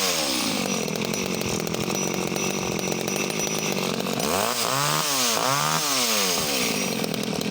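Danarm 1-36 MK3 34cc two-stroke top-handle chainsaw running hard and steady just after being restarted. About four and a half seconds in, it is revved up and down several times in quick succession.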